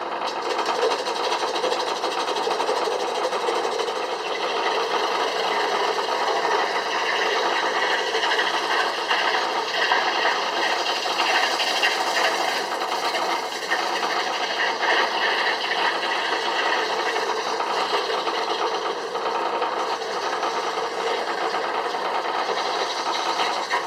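Antique belt-driven wood lathe running steadily, with the scraping of a turning tool cutting the spinning wood; the noise swells and eases as the cut goes on.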